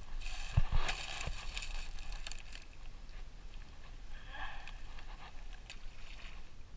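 Rustling and a couple of knocks from handling a caught bass among dry leaves and sticks at the pond's edge, then a small splash as the fish drops back into the water near the end.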